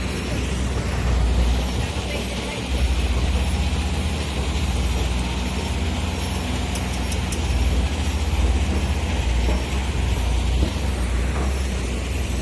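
Diesel engines of heavy earthmoving machinery running, a deep steady rumble that dips briefly about two and a half seconds in and then comes back louder.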